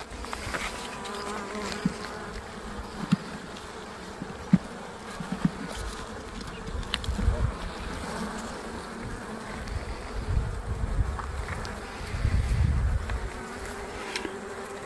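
Honeybees buzzing steadily around an opened hive as a frame thick with bees is lifted out, with a few light knocks and a low rumble later on.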